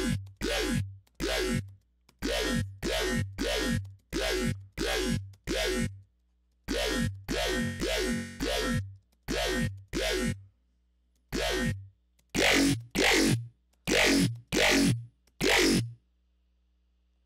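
A dubstep bass one-shot patched in the Xfer Serum synthesizer, played over and over in short hits of about half a second. Each hit has a falling pitch sweep over a deep sub. The last few hits are louder and brighter.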